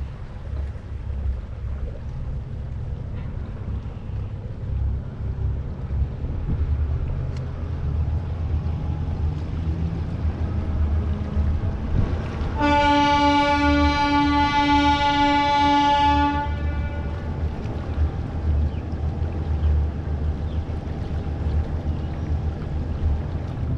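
A horn blows one long, steady blast of about four seconds, starting about halfway through. Under it runs the low, steady rumble of the boat's engine as the catamaran motors on.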